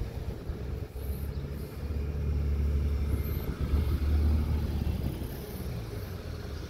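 Cars passing one after another at slow speed, their low engine and tyre rumble swelling as a dark Dodge Charger goes by close, then easing as a minivan follows.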